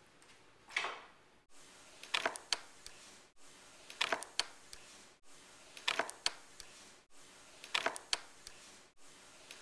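Brass doorknob being turned and rattled over and over, its latch clicking in a short cluster of clicks about every two seconds.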